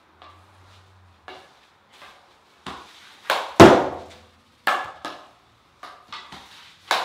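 Field hockey ball struck with reverse-stick hits from a Princess SGX low-bow, 100% carbon-reinforced composite stick on artificial turf. A series of knocks, the loudest a sharp crack about three and a half seconds in, with another hard knock at the very end.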